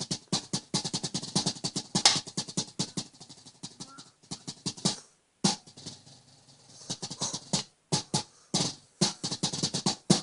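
Drumsticks playing a homemade mesh snare drum head. A rapid run of strokes fills the first half, then comes a brief pause about five seconds in, followed by scattered groups of hits with short gaps between them.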